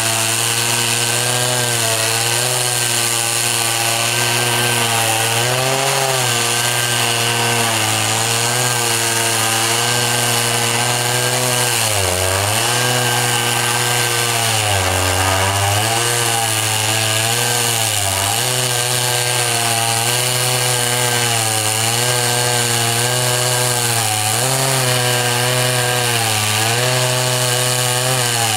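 Two-stroke Stihl chainsaw in a Logosol chainsaw mill, running at full throttle as it rips a maple log lengthwise. The engine note holds steady but sags briefly in pitch several times as the cut loads it.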